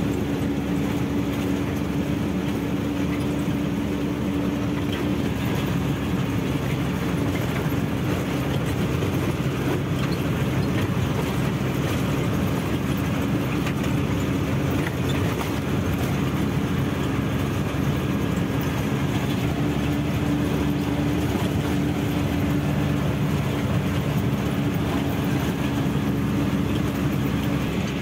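Truck engine running steadily with road noise while driving along, an even hum that holds its pitch throughout.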